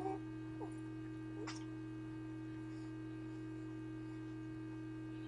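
Steady electrical hum, with two or three faint, short hiccup sounds in the first second and a half.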